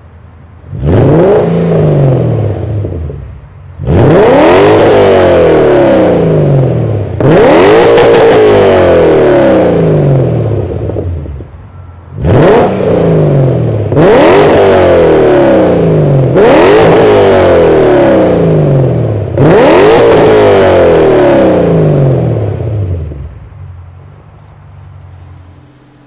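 BMW E39 M5's S62 V8 blipped through a header-back exhaust with an X-pipe and four resonators: about seven sharp revs from idle. Each rev climbs quickly and falls back, and the engine settles to a quiet idle near the end.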